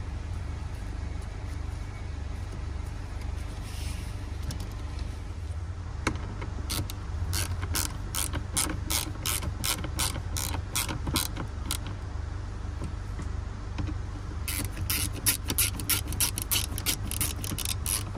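Hand ratchet driver clicking as it turns screws into plastic console trim: a run of evenly spaced clicks, about three a second, from about seven seconds in to about twelve, then a faster run near the end. A steady low hum runs underneath.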